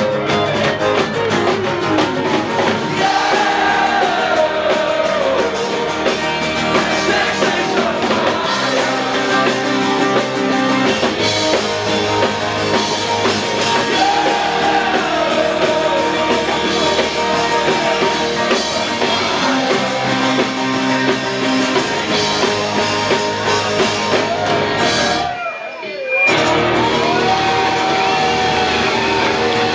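Live Irish folk-rock band: acoustic guitar and lead vocals sung into a microphone, with the crowd shouting and singing along. The music drops out briefly about 25 seconds in, then carries on.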